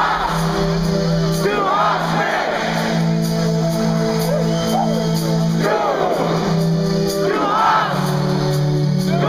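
Live rock concert recorded from within the audience: sustained synthesizer chords ring out while the crowd shouts and sings along in repeated bursts every couple of seconds.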